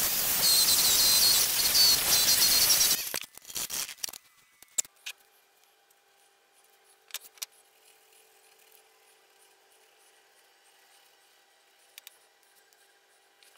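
Loud abrasive rubbing against wood with squeaky chirps for about three seconds, stopping suddenly, then a few short scrapes. After that only a faint steady hum and a few sharp clicks remain.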